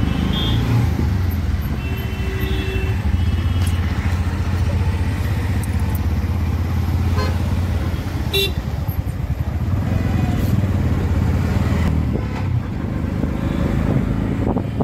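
Auto-rickshaw engine running steadily with a low drone, heard from inside its open cabin amid street traffic, with a few short car horn toots in the first few seconds.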